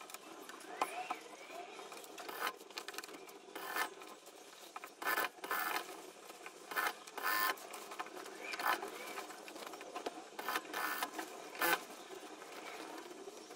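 Industrial lockstitch sewing machine stitching in short runs of under a second, about eight or nine times, with fabric rustling between runs as the cloth is repositioned. It is sewing down the seam allowance along a skirt's waistband.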